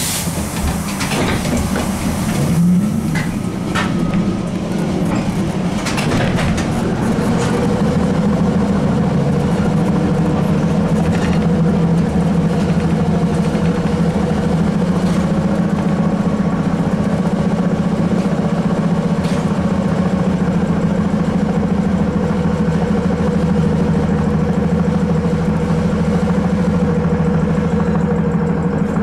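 ZiU-682 trolleybus running, heard from inside: a hiss of air at the very start, a few knocks in the first seconds and a short rising whine about two and a half seconds in, then a steady electric hum and drone that firms up after about seven seconds.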